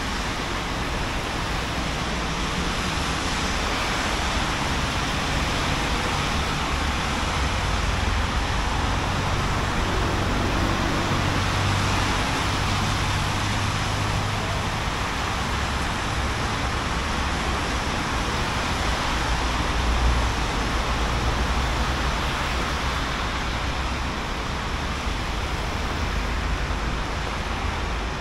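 City traffic on wet roads in the rain: a steady hiss of tyres and rain over a low engine rumble, which swells as heavier vehicles pass about a third of the way in and again later.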